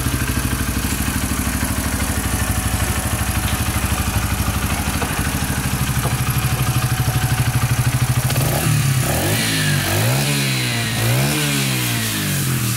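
AJS Cadwell's single-cylinder motorcycle engine idling with an even pulsing beat, then revved up and back down three times in the last few seconds.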